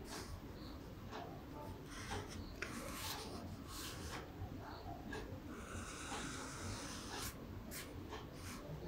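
Black marker drawing lines on paper: dry rubbing strokes, a longer one about three seconds in and another about six seconds in, over a low background hum.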